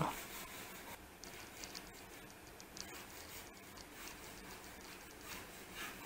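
Faint scratching and light ticking of fingers handling small plastic beads while gluing them together, with a short run of quick ticks about a second in.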